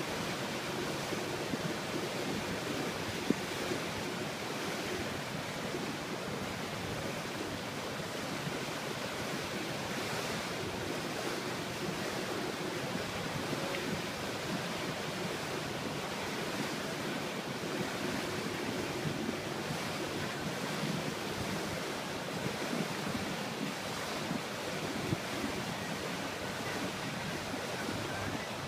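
Steady wind noise on the microphone over rushing, splashing lake water, with one brief knock about three seconds in.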